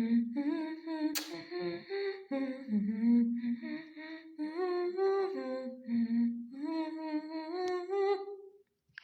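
A person humming a tune, the notes stepping up and down in short phrases, with a sharp click about a second in.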